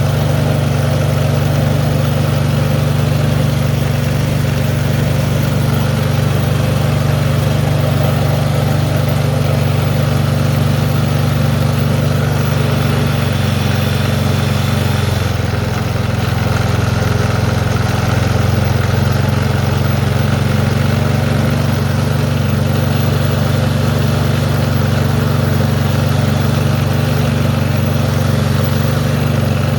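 Craftsman snowblower's single-cylinder gas engine idling steadily on the low turtle throttle setting, warming up just after a cold start on full choke. Its note dips slightly about halfway through, then settles back.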